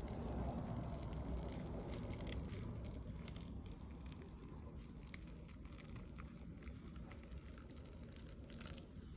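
Boiling water poured from a pot into a cup of instant ramen noodles, a faint pouring noise that fades out over the first few seconds, with scattered small clicks and crackles.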